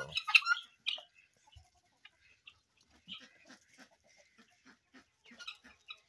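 Hens clucking quietly: a few short, sharper calls in the first second, then a run of soft, evenly spaced clucks later on.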